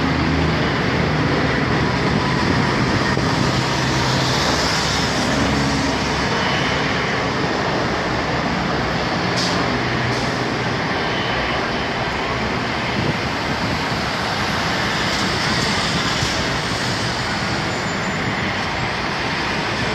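Steady roar of road traffic with heavy vehicles such as trucks and buses, a little stronger in the low end near the start and easing slightly after.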